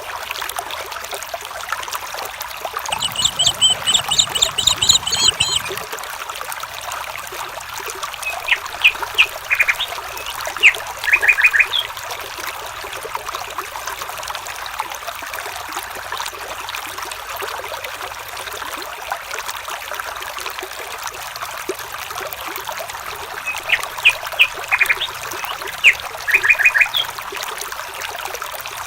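A stream trickling and flowing steadily, with bird calls over it. A fast chattering trill comes about three seconds in, and a short phrase of sharp chirps near ten seconds is repeated near twenty-five seconds.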